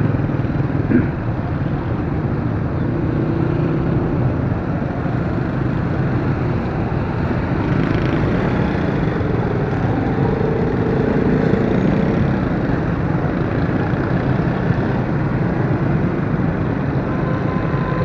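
Small motorcycle engines running in dense traffic, with steady road noise, heard from a motorcycle riding along among them.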